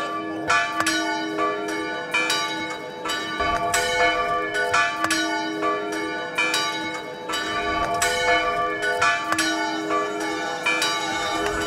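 Bells ringing: frequent, irregular strokes whose tones ring on and overlap, like a peal of church bells.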